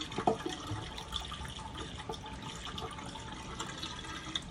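Water poured from a bottle into an air conditioner's condensate drain line, running down the line freely: the line is draining well.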